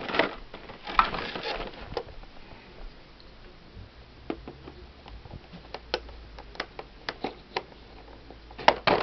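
Cardboard packaging handled with a rustle for the first two seconds, then an irregular scatter of sharp clicks and small scrapes as a folding knife blade cuts into the edge of the box.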